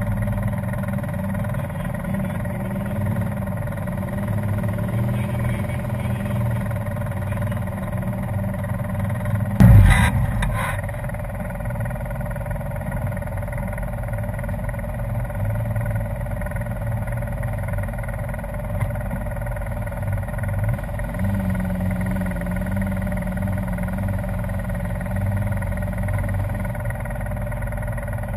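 Polaris RZR side-by-side's engine running steadily, heard from inside the cab, with one short, loud burst of sound about ten seconds in.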